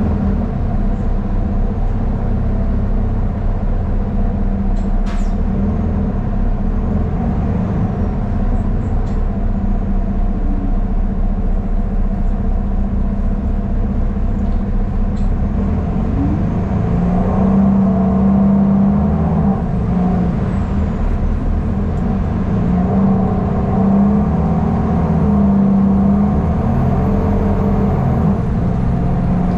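Ride inside a city transit bus: a steady engine drone with low rumble, getting louder a little past halfway through, with a brief click or rattle about five seconds in.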